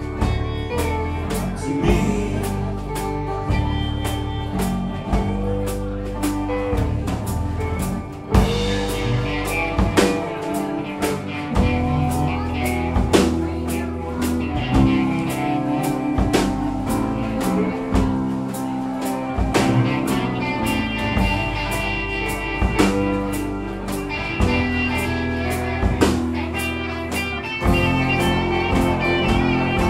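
Live alt-country rock band playing an instrumental section: electric guitars carrying a lead line with bent notes over bass guitar and a drum kit keeping a steady beat.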